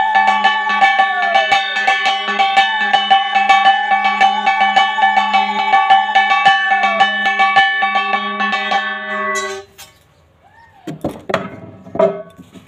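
Music with sustained melodic tones over a steady low drone and a fast, even percussion beat, stopping abruptly just before ten seconds in; a few quieter knocks follow near the end.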